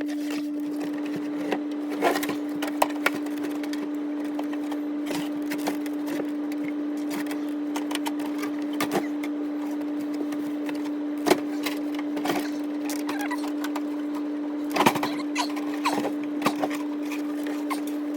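Irregular knocks and clatters of furnace removal work, the loudest about 2, 11 and 15 seconds in, over a steady unchanging hum that holds one pitch.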